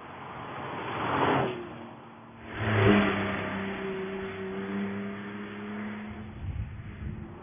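Porsche 911 Carrera T's twin-turbo flat-six engine accelerating past: the engine note swells to a peak about a second in and drops away briefly. It then surges again as the car pulls hard out of the bend, holding a steady note that slowly fades as it drives off. A few brief crackles come near the end.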